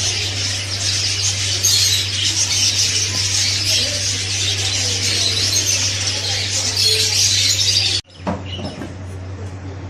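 Many small birds chirping and chattering together in a dense, continuous din over a steady low hum. The chatter cuts off sharply about eight seconds in, leaving a quieter background.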